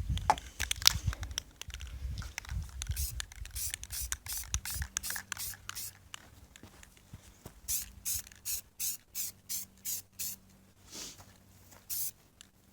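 Aerosol spray can of black paint hissing in many short bursts as light coats go on, coming about two a second in the second half, with a low rumble under the first few seconds.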